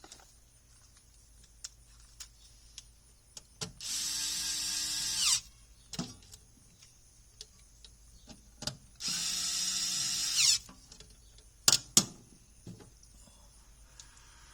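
Power drill running in two bursts of about a second and a half each, a few seconds apart, with scattered clicks and knocks between them and two sharp clicks after the second burst.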